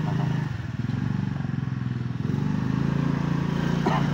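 Motorcycle engine running at low speed, louder from about two seconds in.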